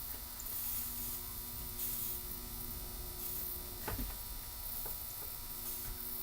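Soldering gun humming and buzzing steadily while it heats a wire joint. The hum drops out and comes back a few times, and there is a sharp click about four seconds in.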